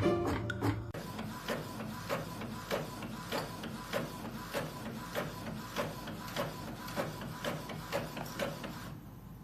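Printer running, its mechanism clicking evenly about twice a second over a faint steady whine.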